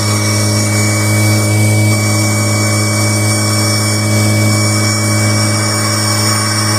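Kirby Generation 4 upright vacuum cleaner's motor running steadily with a loud, even hum, while its old dust bag leaks exhaust air.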